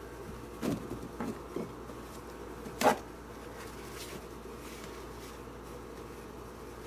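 Steady low buzzing hum of a shop machine's motor running, with a few faint knocks in the first two seconds and one sharp clack just before three seconds in.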